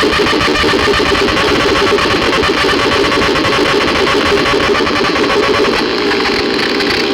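Harsh, noisy synthesizer drone with a fast, even buzzing pulse, held steady.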